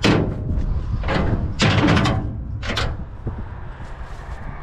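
Scrap being handled: about four loud bangs and scrapes in the first three seconds, then quieter rustling.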